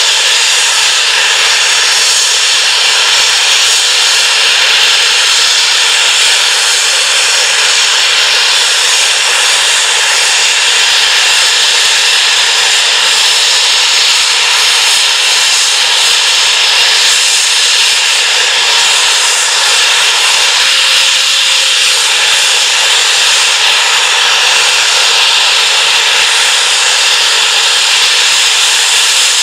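Safety valves of a GWR King class 4-6-0 steam locomotive (No. 6023 King Edward II) blowing off in a loud, steady hiss. This means the boiler is at full working pressure.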